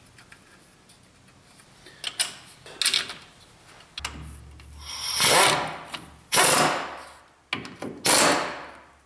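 Astro Pneumatic Nano air ratchet running in bolts in about four bursts of a second or so each, starting about halfway through, after a few light clicks of parts being handled.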